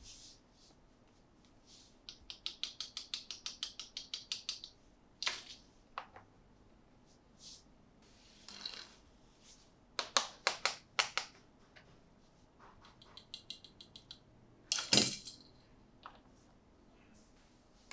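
Toy packaging being handled during an unboxing: plastic and cardboard clicking and crackling. It starts with a rapid run of small clicks, about eight a second, for a couple of seconds. Scattered taps and a second, fainter click run follow, with a louder crackle near the end.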